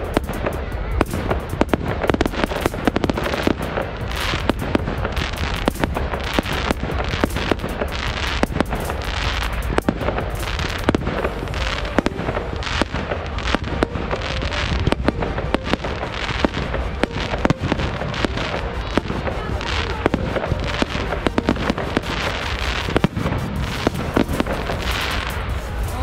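Aerial fireworks bursting: a dense, irregular run of sharp bangs and crackles, many reports every second.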